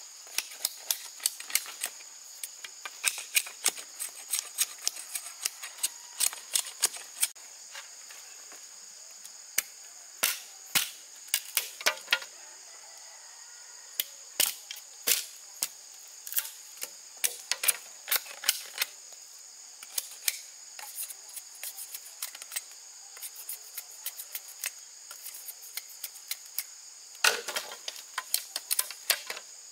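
Sharp, irregular knocks and clicks of hand work on bamboo, coming in quick clusters with short pauses, over a steady high-pitched drone of insects.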